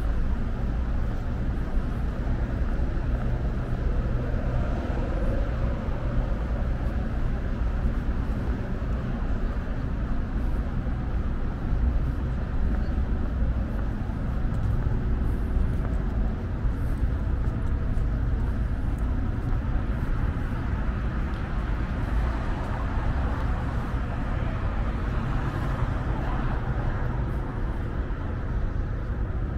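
Street traffic: a steady, continuous rumble of passing cars, with no single sound standing out.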